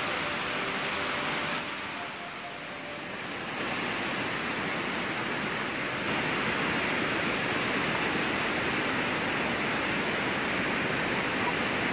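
Floodwater rushing down the overflowing spillway of a reservoir dam, with the reservoir brimming after days of heavy rain. The sound is a steady, even rush that dips briefly about two seconds in.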